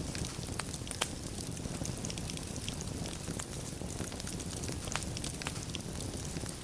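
Wood fire of burning logs in a fireplace crackling, with irregular sharp pops, the loudest about a second in, over a steady low rush.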